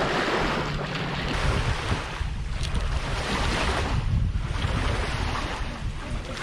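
Wind buffeting the microphone: a low rumble that rises and falls, with a steady rushing over it.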